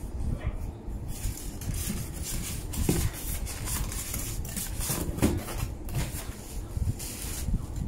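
Packaging being handled: a polystyrene foam insert rubbing and scraping against a cardboard box, with rustling and a run of short scratchy knocks.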